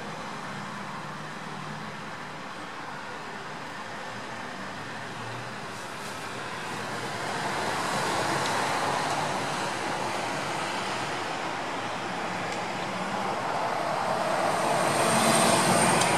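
Steady outdoor rushing background noise that swells about eight seconds in and again near the end, with a faint high whine near the end.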